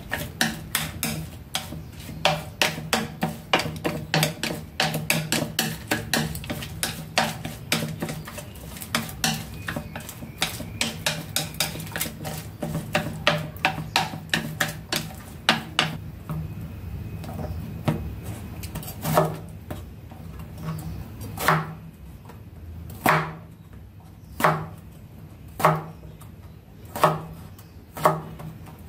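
Wooden chopsticks clicking rapidly against a dish while mixing marinated raw meat. Then a knife slicing a peeled luffa on a wooden cutting board, single evenly spaced chops roughly one every second and a half.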